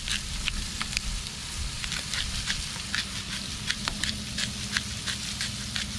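Whole pompano sizzling on aluminium foil over hot charcoal, a steady hiss, with scattered sharp clicks as a disposable pepper grinder is twisted over the fish.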